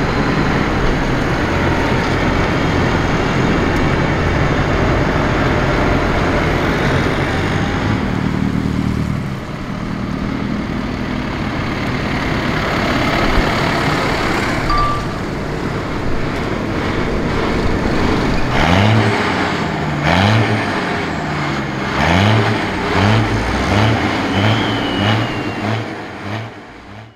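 Tractor diesel engines running steadily as the tractors drive along the road. Then, about two-thirds of the way in, parked tractors are revved in repeated short blips, each a quick rise and fall in pitch, coming faster toward the end before the sound fades out.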